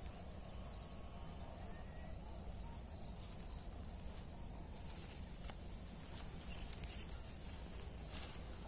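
Steady high-pitched chirring of insects in the grass, with a low rumble underneath and a few faint clicks.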